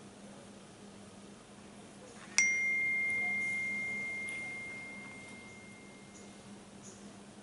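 A single bell-like chime struck once, a couple of seconds in: one clear high tone that rings out and fades away over about four seconds.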